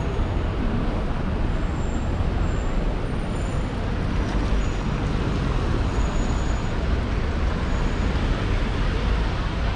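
Busy city road traffic: cars and buses passing in a steady low rumble with a hiss of noise over it.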